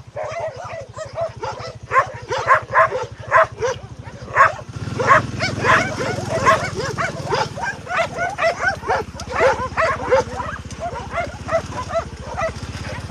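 Several dogs barking, a dense run of short overlapping barks. A low rumble joins about five seconds in.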